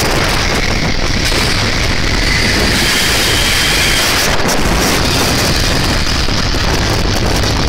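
Wind buffeting a microphone on a moving motorcycle, over the steady rush of the bike and the road at speed.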